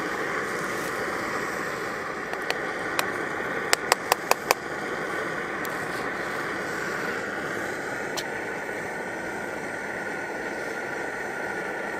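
Svea 123R brass pressure stove's burner running steadily with a constant roar. About four seconds in there is a quick run of five sharp clicks, with a few single clicks before and after it.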